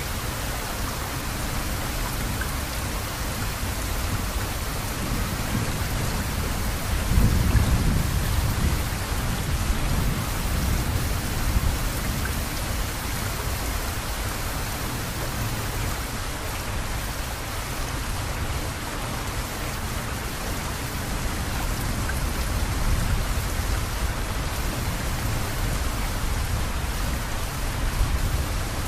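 Steady rain falling, with a low rumble of thunder swelling and fading about a quarter of the way in, and fainter rumbles near the end.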